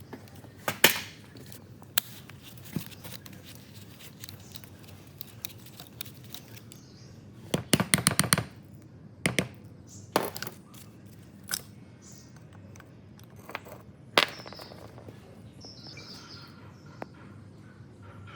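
Sharp metal knocks and clinks from work on an old rusty water pump, with scattered single strikes and a quick run of about eight rapid taps around the middle.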